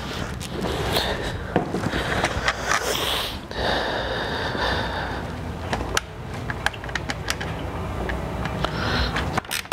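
Hands working on grille and bracket hardware: scattered sharp clicks and scrapes over a steady background rumble, with a quick run of clicks starting near the end.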